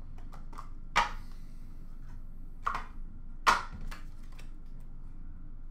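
Handling of small card packaging: sharp clicks and taps of a cardboard box and a clear plastic case being picked up, opened and set down on a glass counter, with three louder knocks about one, two and a half and three and a half seconds in.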